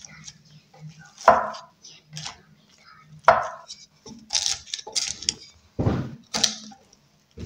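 Wooden spatula cutting into and scooping a baked potato casserole in a ceramic baking dish: a series of separate scrapes and knocks against the dish, with a duller thump just before six seconds.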